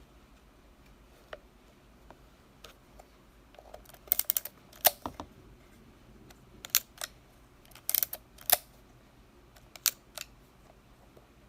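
Konica Auto S rangefinder film camera being worked by hand: a series of sharp mechanical clicks, sparse at first and then coming quickly, with short rattling clusters, typical of cocking the film-advance lever and firing the shutter.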